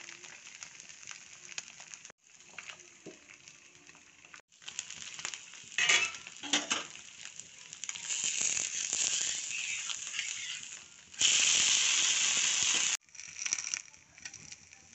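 Dosa batter sizzling on a hot tawa, with a couple of sharp strokes about six seconds in. Near the end a much louder, steady hiss lasts about two seconds and then cuts off suddenly.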